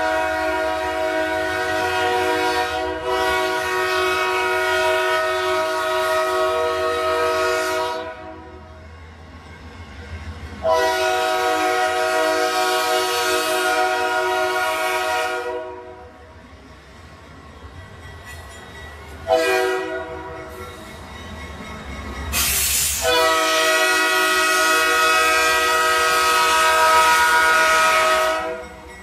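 Locomotive multi-chime air horn sounding the grade-crossing signal: two long blasts, a short one, then a final long blast, over a low rumble. A brief rush of noise comes just before the last blast.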